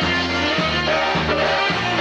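Live polka band playing an instrumental passage, with a bouncing bass line that changes notes about twice a second under the melody instruments.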